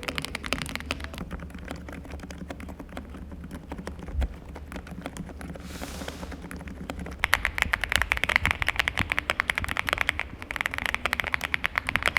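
AULA mechanical keyboard being typed on rapidly, keystrokes clacking in a dense stream. The strokes are softer for the first several seconds, then louder and brighter from about seven seconds in.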